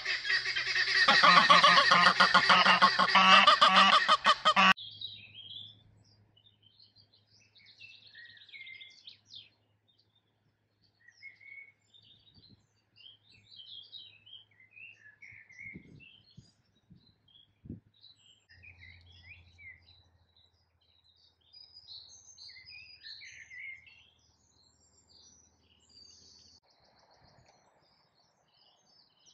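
Domestic goose honking loudly in a rapid run of calls that stops abruptly about five seconds in. After that, only faint, scattered songbird chirps and short song phrases.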